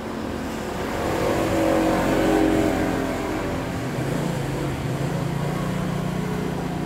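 A motor vehicle engine running, growing louder and rising in pitch about two seconds in, then settling into a steady low hum.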